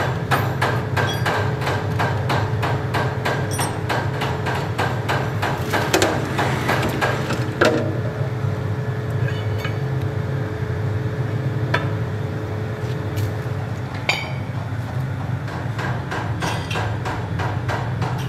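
Pillar drill press running with a steady hum while drilling a steel truck axle flange through a jig, with a fast clatter of metallic ticks, about four or five a second. The ticks thin out after about six seconds, with a couple of louder metal knocks around then.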